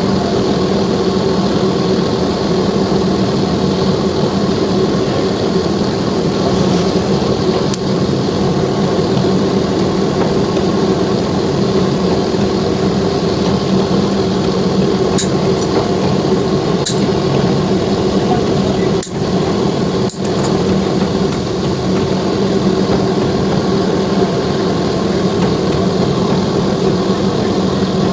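A steady machine hum with a few short, sharp clicks around the middle.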